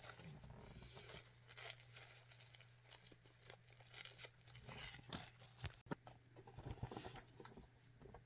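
Near silence: faint room tone with a low steady hum and scattered soft clicks and rustles.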